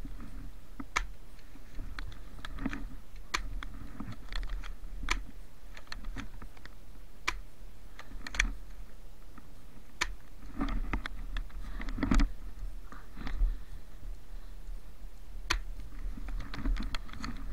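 Snow crunching close to the microphone as someone moves through deep snow, with scattered sharp clicks at irregular intervals.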